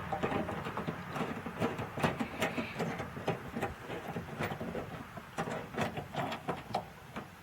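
Irregular clicks and light metallic rattling, a few a second, from a hand tool and the door-handle hardware inside a car door as the 10mm bolt holding the exterior handle is worked loose.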